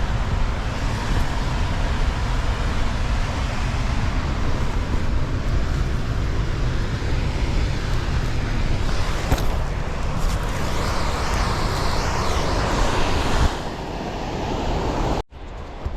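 Steady roar of rushing water from a creek waterfall, with a heavy low rumble. It eases about three quarters of the way through, then cuts off abruptly and comes back quieter.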